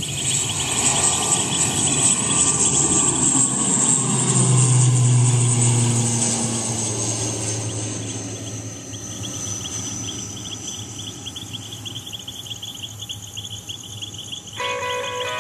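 An aircraft passing by: its engine noise swells to a peak about five seconds in, then fades while its pitch falls. Insects chirp steadily throughout, and music comes in near the end.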